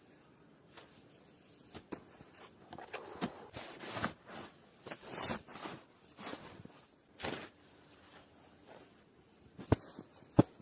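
Irregular crunching and rustling of someone moving about in snow, with a few short, sharp knocks near the end.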